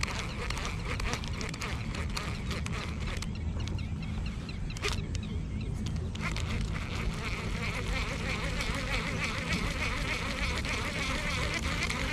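Steady buzzing and chirping chorus of insects, with a low rumble underneath; the chorus thins out for a few seconds near the middle.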